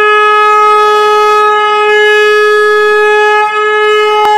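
Conch shell (shankh) blown in one long, steady, loud note.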